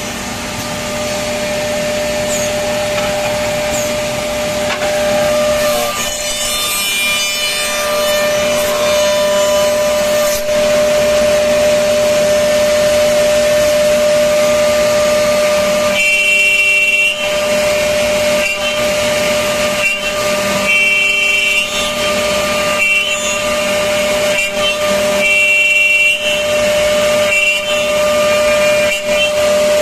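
Woodmaster two-head, four-cutter CNC tenoning machine at work, its spindle motors running with a steady whine while the cutters machine tenons into a clamped wooden rail. There is one long cut about six seconds in, then a run of shorter cutting passes in the second half.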